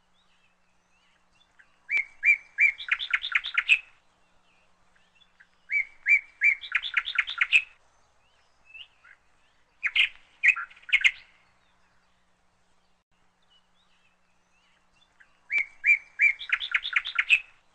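A songbird singing the same short song four times. Each song is a few separate notes followed by a fast trill, about two seconds long, with quiet gaps between.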